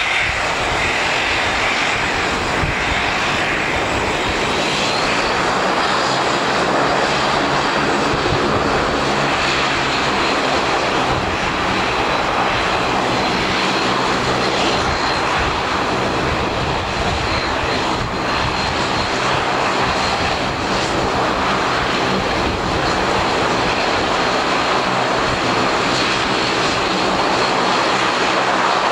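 Bombardier DHC8-Q400's Pratt & Whitney PW150A turboprop engines running steadily on the ground: a loud propeller drone with a high turbine whine that rises slightly about five seconds in.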